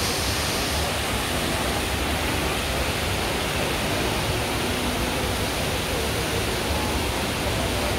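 Steady rush of the Rain Vortex, Jewel Changi's tall indoor waterfall, pouring down into its pool.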